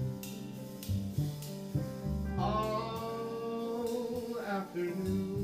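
Live jazz ballad: an upright bass plucks a moving low line under piano chords and lightly struck cymbals. A male vocalist sings a long held phrase from about two seconds in to near the end.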